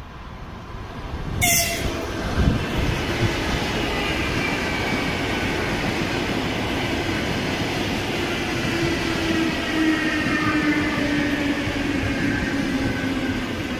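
ЭП2Д (EP2D) electric multiple unit running past close by: wheels and cars on the rails, with a whine whose pitch falls slowly as the train goes by. A sudden loud, sharp burst about a second and a half in, as the front of the train arrives.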